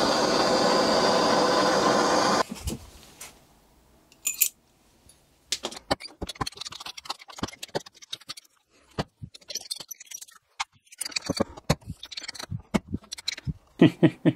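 Heat gun blowing steadily on a thin steel sleeve, switched off about two seconds in. After that come scattered metal clicks, taps and scrapes as the hot sleeve is worked onto the chilled gearbox output shaft for a tight thermal fit.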